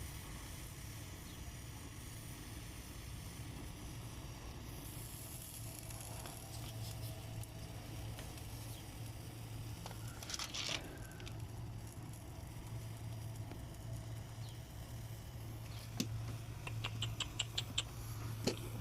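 Brazing torch flame burning on the copper refrigerant lines with a steady low rumble and light crackling, a short louder burst about ten seconds in, and a run of quick ticks near the end.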